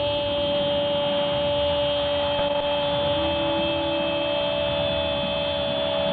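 A football commentator's long drawn-out goal cry, "gooool", held on one steady note through the whole stretch, with a slight lift in pitch about three seconds in, over stadium crowd noise.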